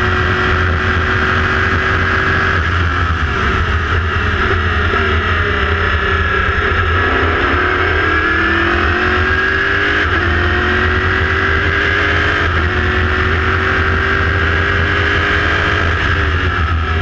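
Onboard sound of an LMPC prototype race car's Chevrolet V8 at speed. The engine note drops for a few seconds, then climbs again as the car accelerates, with a step in pitch about ten seconds in, followed by a slow rise.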